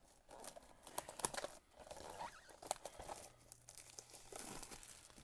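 Plastic shrink-wrap being peeled and crinkled off a cardboard trading-card box, with irregular crackles and small clicks.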